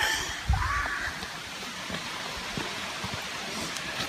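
Steady hiss of a mountain stream running over a cliff edge into a waterfall, with a brief low rumble on the microphone about half a second in.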